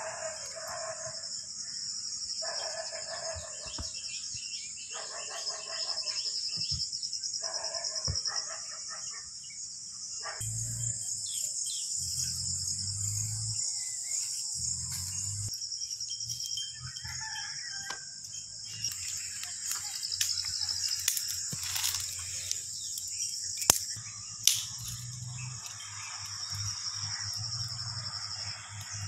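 Rooster crowing several times, in calls of about a second each, over a steady high drone of insects. From about a third of the way in there is low rumbling, and near the end a few sharp clicks.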